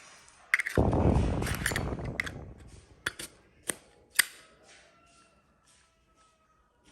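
1994 Zippo brass lighter being worked by hand: a metallic click, a rasping stretch from the flint wheel and lid, then three sharp clicks of the lid snapping. The lid's hinge is slightly loose.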